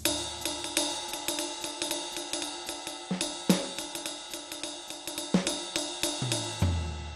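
Sampled drum-kit sounds from a dbdrums db10 V3 electronic drum module. A cymbal hit opens it, then an even cymbal beat of about four strokes a second runs with snare and bass drum. Fills of toms step down in pitch around the middle and near the end, and the lowest tom hit rings out.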